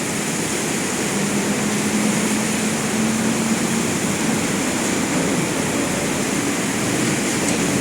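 Heavy rain pouring down in a steady hiss. A low hum rises slightly from about a second in and fades by about four seconds.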